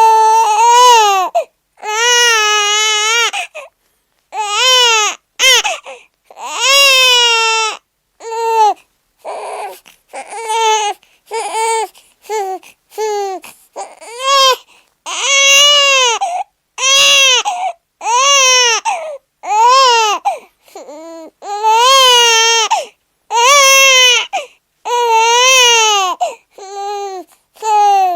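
Newborn baby crying hard in a long run of wails, each about a second long with short breaths between, the pitch rising and falling within each cry.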